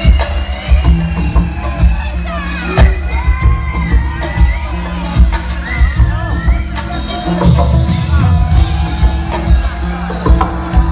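Live band music in a concert hall, with heavy bass notes and drum hits, while the crowd whoops and cheers.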